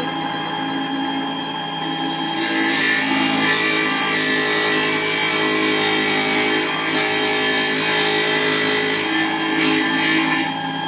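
Homemade mini table saw driven by a 775 DC motor, running with a steady whine. From about two seconds in until near the end it gets louder and harsher as the blade cuts through a workpiece.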